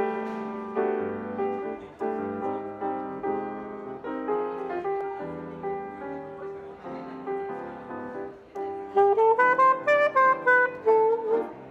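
A grand piano plays a chordal introduction for about nine seconds. Then a saxophone comes in louder with the melody over the piano, in a jazz duo.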